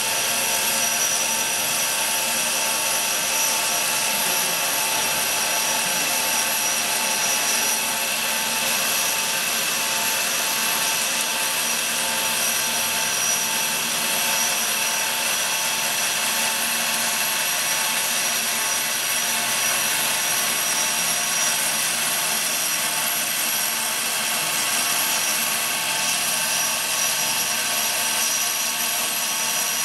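CNC wire foam-cutting machine running as its wire slowly cuts through a polystyrene foam block: a steady mechanical whine with several held tones over a hiss, even throughout.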